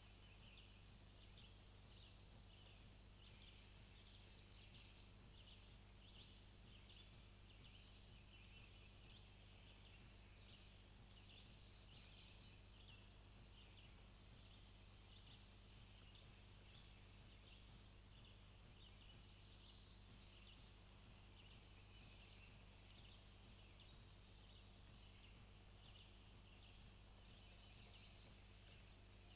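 Faint forest ambience: a steady patter of high chirps, with a brighter rising call repeating about every ten seconds.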